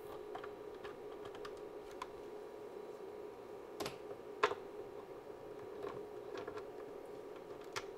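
BNC cable connector being pushed onto an oscilloscope's channel input and twisted to lock, making a scatter of small clicks, the loudest about four and a half seconds in, over a faint steady hum.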